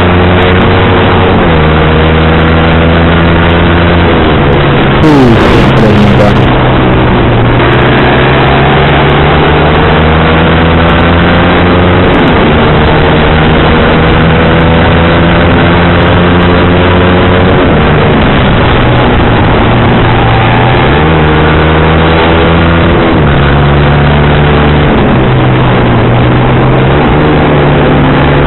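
Sport motorcycle engine with a racing exhaust accelerating hard. Its pitch climbs and then drops at each gear change, several times over, above a steady rush of wind noise. There is a brief louder burst of noise about five seconds in.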